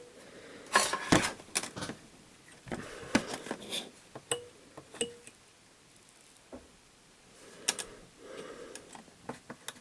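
Small metal hand tools clicking and clinking against the bench and the work in a string of sharp, irregular taps, with quiet stretches between.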